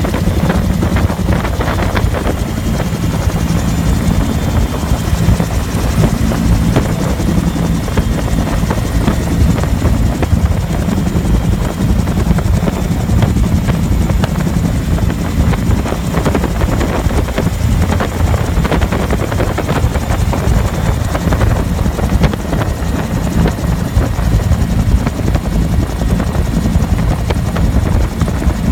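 Bell UH-1 Huey helicopter in flight, heard from inside the cabin: the steady, loud drone of its main rotor and turboshaft engine, heaviest in the low end.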